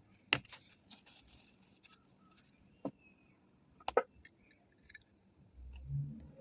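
Small clicks, taps and light scraping from a Zippo lighter's metal parts being cleaned by hand with a toothpick and paper towel. There are two louder clicks, one under a second in and one about four seconds in, and a soft low bump near the end.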